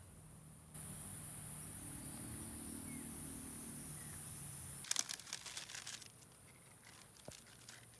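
Insects droning steadily at a high pitch, cutting in and out abruptly, over a low hum. About five seconds in there is a brief cluster of sharp clicks.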